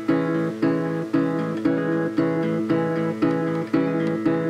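Acoustic guitar strummed in a steady rhythm, about two strums a second, as the instrumental lead-in to a song.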